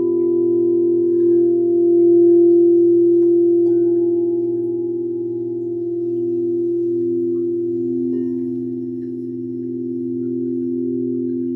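Sound bowls ringing with long sustained tones that waver and pulse slowly. Another bowl is softly struck about a third of the way in, and again about two-thirds of the way in.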